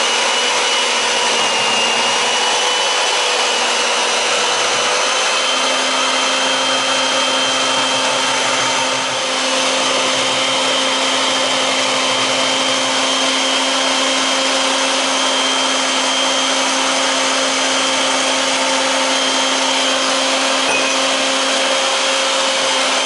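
Electric hand mixer running steadily with a constant motor whine, its beaters churning a runny cake batter as milk and oil are mixed in.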